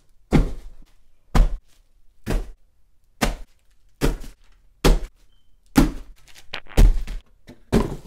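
A run of dull thumps, about one a second, each with a short ringing tail.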